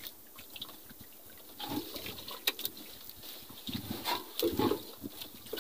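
Seawater lapping and slapping against the hull of a small outrigger boat in irregular small splashes, the loudest about four seconds in.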